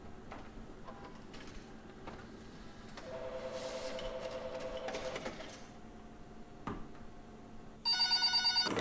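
Push-button desk telephones: scattered clicks of keys and handsets, a steady two-tone telephone signal for a couple of seconds midway, then a telephone ringing loudly and rapidly pulsing for about a second near the end.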